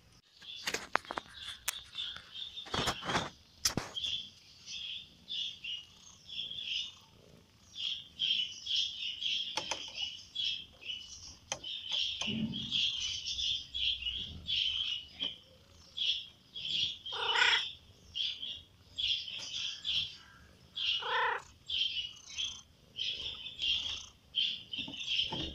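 Small birds chirping over and over in quick, high notes. There are a few sharp clicks in the first seconds, and two louder, lower calls come in the middle.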